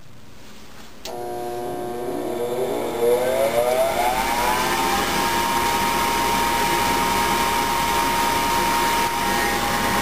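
Rheem Criterion II 80% gas furnace starting up: its draft inducer motor switches on about a second in with a whine that rises in pitch over the next few seconds as it comes up to speed, then holds steady. This is the first stage of the furnace's firing sequence.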